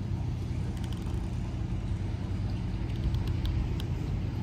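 Steady low engine rumble, with a few faint ticks over it.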